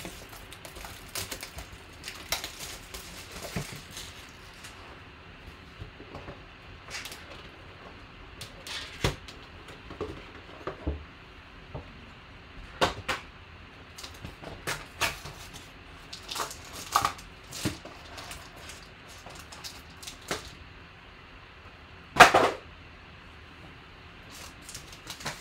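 Hands unwrapping and opening a 2016 Panini Black Gold football card box: scattered crinkling and clicks of the wrapper, cardboard and gold foil packs being handled, with one sharp knock near the end as something is set down on the table.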